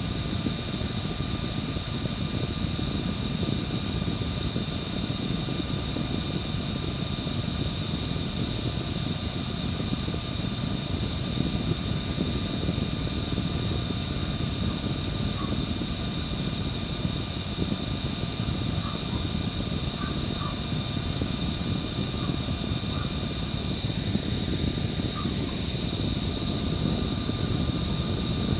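Small electric fan running steadily: a low whooshing of the blades with a steady high-pitched motor whine over it.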